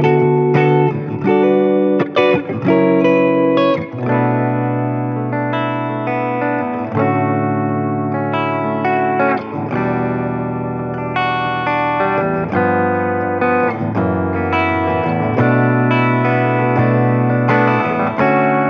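Fender American Professional Deluxe Shawbucker Telecaster electric guitar, played through effects over a backing track: quick picked notes for the first few seconds, then long held chords.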